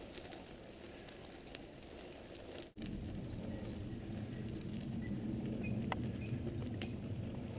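Mountain bike tyres rolling over a wet dirt trail: a low, steady rumble with scattered small clicks and patter of grit and water. The rumble is louder after about three seconds.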